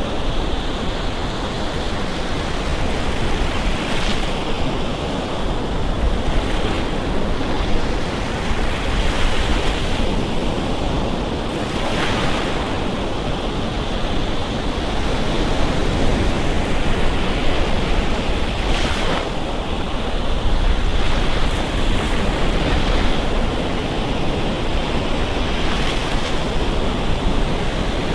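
Gulf Coast surf: small waves breaking and washing up the beach in a steady hiss, with a louder break about every seven seconds.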